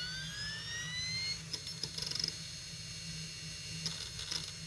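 Iomega Jaz removable-disk drive spinning up a freshly inserted cartridge: a whine that rises in pitch for about the first second and then holds steady, with bursts of rapid clicking as the heads seek.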